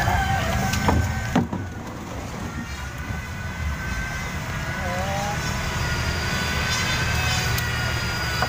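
A steady low rumble, with two knocks about a second in as a heavy wooden speaker cabinet is set onto a stack.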